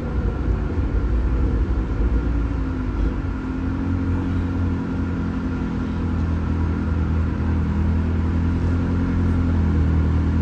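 Car engine and road rumble heard from inside the cabin while driving. The engine note shifts in pitch in the first few seconds, then holds steady.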